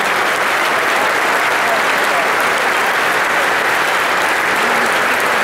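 Large stadium crowd applauding, a loud, steady mass of clapping with voices mixed in.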